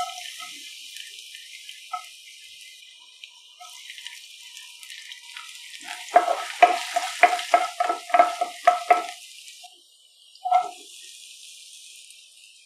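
Chopped garlic sizzling in hot oil in a nonstick pan, a steady hiss. From about halfway, a wooden spatula stirs it with about ten quick taps and scrapes against the pan, some three a second, the loudest sounds here; one more knock follows near the end.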